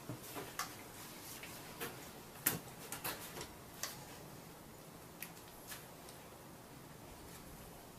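Scattered light clicks and taps of footsteps on concrete and a chainsaw being handled; the saw is not running. The taps are densest in the first four seconds and thin out after.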